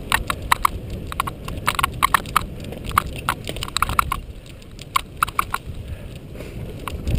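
Cyclocross bike ridden fast over sand and a rough dirt trail: irregular sharp clatters and rattles as the bike jolts over bumps, over a steady low rumble of tyres rolling and wind.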